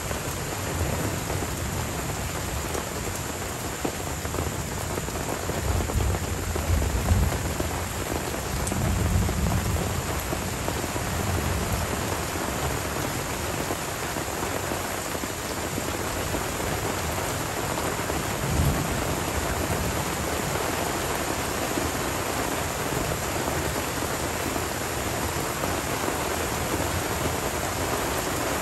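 Steady tropical rain falling on forest foliage and a wet dirt track. Low rolling thunder swells up twice in the first half and once more, briefly, later on.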